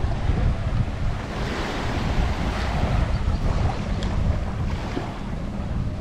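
Wind buffeting the microphone over the wash of small waves on a sandy beach, a steady noisy rumble.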